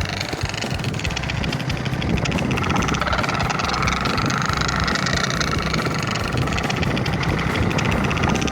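Motorcycle engine running with a toy pipi whistle fitted to its exhaust silencer, sounding a steady high tone over the engine's low rumble.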